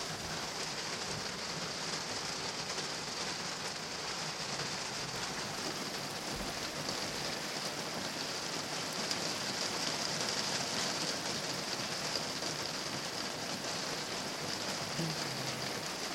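Steady, even hiss of water: flood water running, or rain falling, after a thunderstorm.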